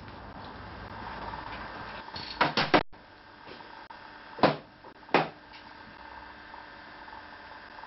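Small steel parts and hand tools being handled on a workbench. A quick run of clinks comes about two and a half seconds in, then two sharper knocks just under a second apart around the middle.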